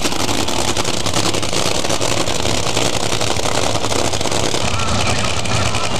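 Nitro-burning supercharged V8 engines of two Funny Car drag racers at full power, a loud, unbroken, crackling noise.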